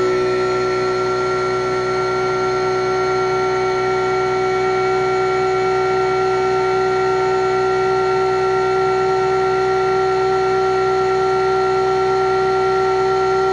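Huanyang water-cooled CNC spindle running at 5,000 RPM together with its cooling pump: a steady whine of several held tones. The owner puts most of the noise down to the pump, which is screwed directly to the machine's bench.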